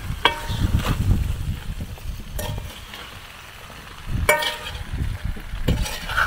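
Potatoes and vegetables stirred in hot oil in a large pan, frying, with a metal utensil knocking and scraping against the pan several times, a couple of the knocks ringing briefly.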